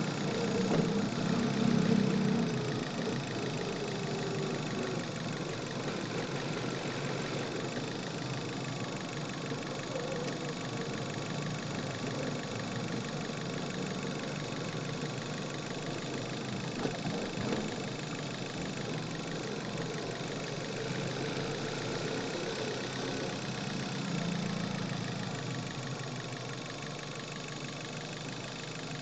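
Manual Chevrolet car's engine running steadily, heard from inside the engine bay, its note shifting a little in pitch as the car is driven.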